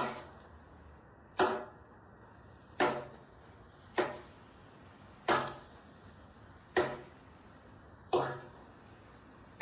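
Japanese hewing axe (masakari) chopping down the side of a round log, shaving it vertically: a steady run of sharp blade strikes into the wood, about three every four seconds, each fading quickly.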